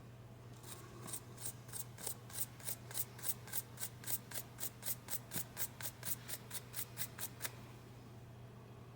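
Hand wire brush scrubbing a small metal electrical terminal on a washer door-lock switch, cleaning the contact: quick back-and-forth scratchy strokes at about four a second that stop about a second and a half before the end.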